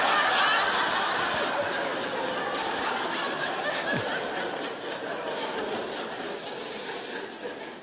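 Audience laughing at a joke's punchline, loud at first and slowly dying away.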